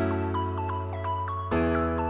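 Background music: a sustained bass and chord with a quick repeating pattern of keyboard-like notes over it, changing chord about halfway through.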